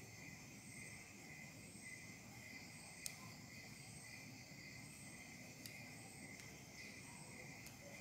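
Near silence with faint crickets chirring steadily in the background, and a few faint sharp clicks, the clearest about three seconds in.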